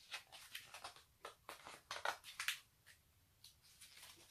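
Paper page of a picture book being turned and handled: a quick run of soft rustles and crackles, thickest and loudest about two seconds in, then fading to faint handling noise.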